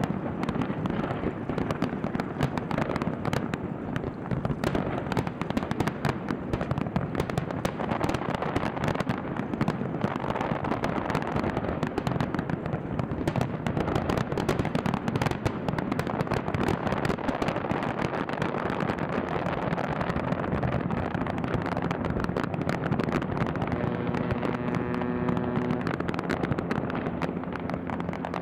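Fireworks display: dense, continuous crackling and banging of many shells bursting at once. A steady pitched tone joins in about four seconds before the end.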